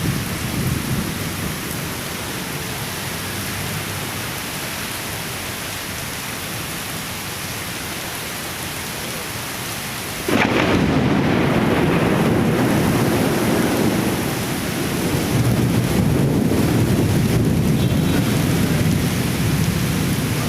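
Heavy rain pouring in a thunderstorm with strong wind. About ten seconds in the sound turns suddenly louder and deeper, a rumble that carries on to the end, typical of thunder.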